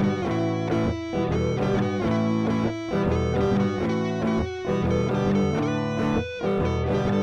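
Background music: a rock track with electric guitar, some of it distorted, and a steady rhythm.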